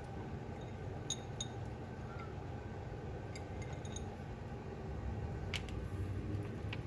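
A cat eating dry kibble from a plate, swallowing it without chewing: a few faint clicks of kibble against the plate over a steady low background hum.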